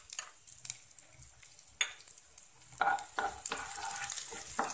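Chopped garlic sizzling in hot oil in a nonstick kadai, with a spatula stirring it and clicking and scraping against the pan, the clicks coming more often from about three seconds in.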